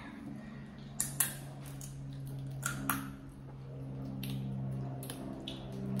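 Seafood boil being eaten by hand: four sharp cracks and clicks, two about a second in and two near the three-second mark, with softer ticks from shells and utensils in between. A steady low hum runs underneath.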